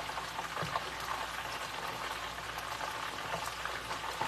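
Chicken wings deep-frying in a pot of hot oil: a steady bubbling sizzle with small pops and crackles.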